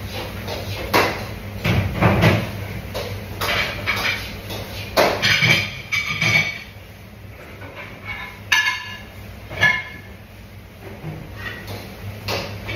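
Kitchen clatter: irregular knocks and clinks of utensils and dishes, some ringing briefly, over a steady low hum.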